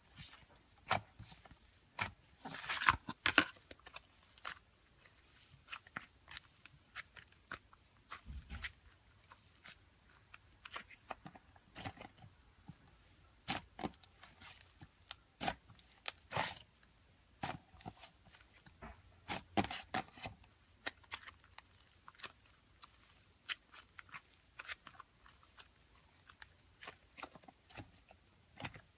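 Slime being squeezed and stretched by hand, giving irregular sharp pops and crackles with a few denser clusters of clicks.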